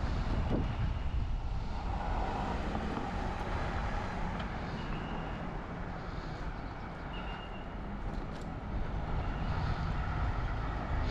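Wind buffeting the microphone of a camera on a moving bicycle: a steady low rumble, with tyre and road noise and faint traffic.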